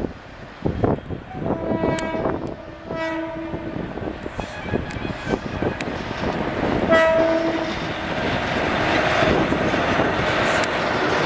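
Indian Railways WAG-7 electric locomotive sounding its dual-tone horn twice, each time a higher note followed by a lower one, about a second and a half in and again about seven seconds in. The rumble and clatter of wheels on rail grows steadily louder toward the end as the train draws near.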